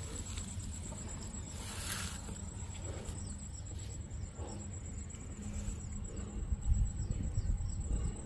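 A high-pitched insect trill running steadily, with a low rumble underneath that grows louder near the end.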